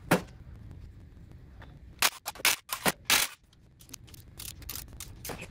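Socket ratchet clicking in several short bursts between about two and three seconds in, with a sharp metal clink just at the start, as the oil pickup bolts inside an upturned engine block are undone.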